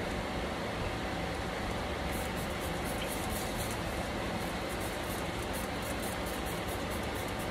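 Steady whooshing air noise with a low hum, like a running fan, and a faint irregular high crackle from about two seconds in.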